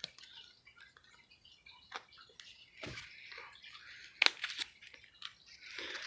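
Small seed packet being worked open by hand: faint crinkling and rustling with scattered small clicks and ticks, the sharpest about four seconds in.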